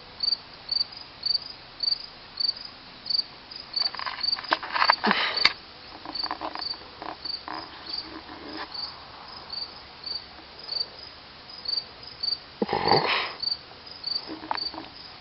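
Insect chirping steadily, about three short high chirps a second, with a few knocks and scuffles about four to five seconds in and again near the end.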